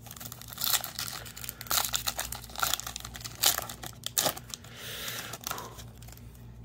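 Foil wrapper of a Yu-Gi-Oh! booster pack being torn open and crinkled by hand, a dense run of sharp crackles and rips that eases off after about five seconds.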